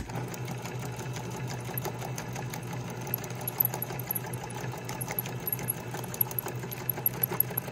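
Electric sewing machine running steadily, its needle stitching a seam across a folded paper bag with a rapid ticking over the motor hum. It starts abruptly and stops near the end.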